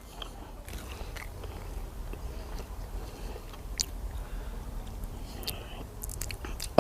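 A person chewing a mouthful of tart fruit close to the microphone, with soft wet mouth noise and a few small sharp clicks.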